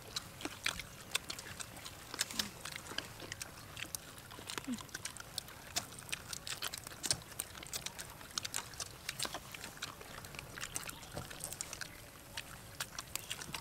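Several people biting and chewing crispy fried chicken feet: many quick, irregular crunches and clicks.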